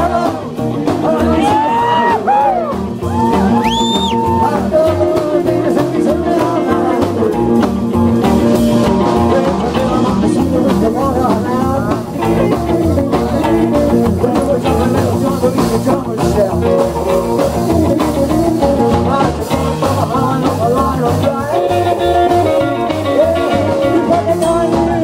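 Live band playing: a male singer at the microphone backed by electric guitar, upright double bass and drums, with a steady driving beat.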